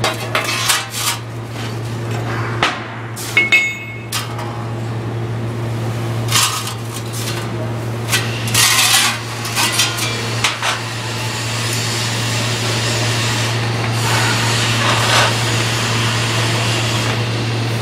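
A brush sweeping loose granular submerged-arc welding flux across a steel table: rough scratchy strokes, separate at first and running into a longer continuous sweep in the second half, over a steady low hum.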